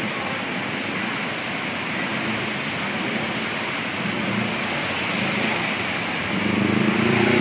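Steady hiss of rain falling on wet pavement, with a small motorcycle's engine running underneath; the engine grows louder about six seconds in as the bike comes close.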